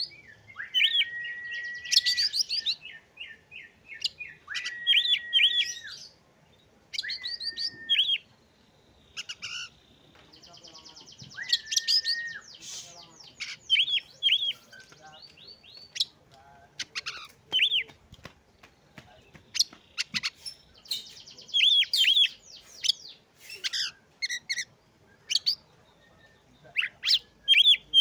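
Oriental magpie-robin singing: repeated phrases that open with a steady held whistle and break into quick high notes, with a buzzy rattle about ten seconds in and faster, choppier notes in the second half.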